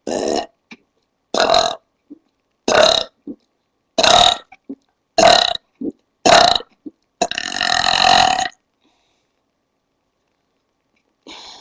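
A woman belching on purpose, seven loud short burps about a second apart, the last one drawn out longer. After a pause, a faint short sound near the end.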